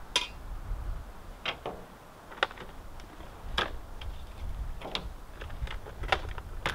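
Cookware and food containers being handled and set down on a pickup tailgate: about eight separate clicks and light knocks at irregular intervals, the first, right at the start, the loudest with a short ring, over a low rumble.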